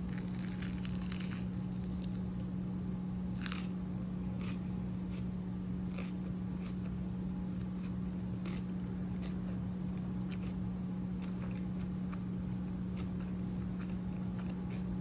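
Eating sounds: scattered crunching bites and chewing of a fried-chicken Caesar sandwich on French bread, most marked in the first second and about three and a half seconds in, over a steady low hum.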